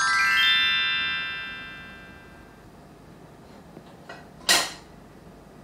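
Short background-music sting: a bright chord played as a quick rising run of notes that rings out and fades over about two and a half seconds. Near the end comes one brief noisy burst.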